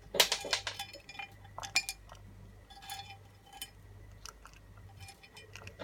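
Dry dog kibble being added to a Kong toy: a string of light clinks and rattles, dense for about the first two seconds, then scattered single clinks.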